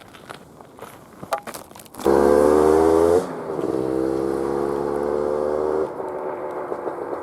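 A few clicks, then the 1988 Kawasaki KMX 200's two-stroke engine starts suddenly about two seconds in. It runs loud for a second, settles lower and steady, and cuts off near the end.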